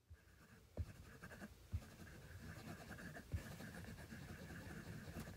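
Faint, continuous scratchy rustling, like a pen scratching on paper, with three soft thumps: about a second in, near two seconds, and just past three seconds.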